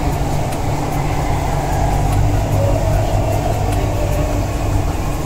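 Chennai Metro train running through a tunnel, heard from inside the carriage: a steady low rumble with a whine held above it.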